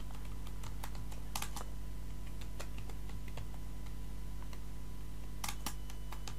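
Computer keyboard typing: irregular single keystrokes, more of them in the first second and a half and a couple near the end, over a steady low electrical hum.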